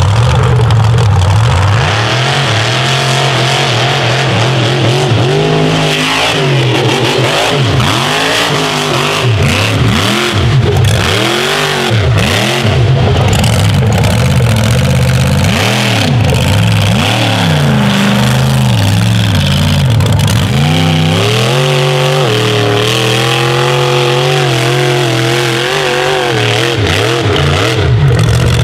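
The 1520-horsepower King Sling mega truck's engine running loud under hard throttle, steady for the first few seconds and then revving up and down again and again.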